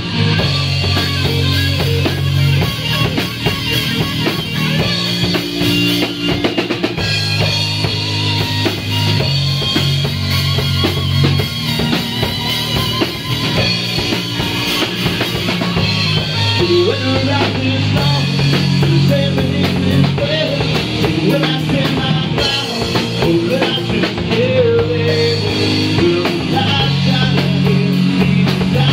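Live rock band playing: electric guitar over bass guitar and a drum kit, with long held bass notes and steady drum hits.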